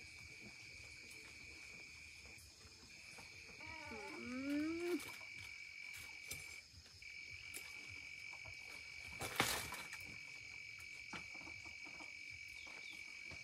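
Insects trilling steadily at one high pitch, with a short rising, pitched call about four seconds in and a brief sharp noise, the loudest sound, about nine and a half seconds in.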